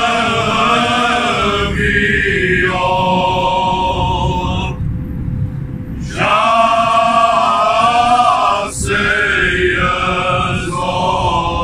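Cante alentejano: an unaccompanied male choir singing in several parts, in slow, long-held notes. The sound breaks off and changes abruptly a few times, around 2, 5, 6 and 9 seconds in, where the recording cuts between takes.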